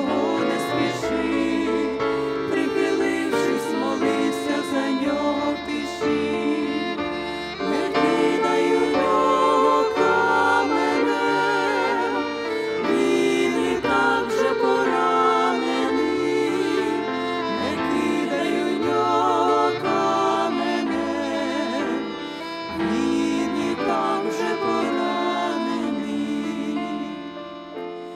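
A women's vocal trio singing a Christian hymn in harmony into microphones, with vibrato, over instrumental accompaniment; the phrase tails off near the end.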